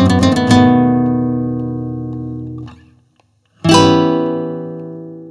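Background music of quickly picked plucked-string notes that stops on a chord about half a second in, left to ring and fade out. After a short silence a single bright chord is struck as an outro sting and rings down slowly.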